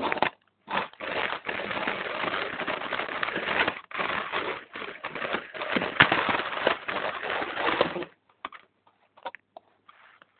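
Rattling, crackling noise of a small camera riding a toy race car along plastic track, broken by short gaps. It stops about eight seconds in, leaving a few faint clicks.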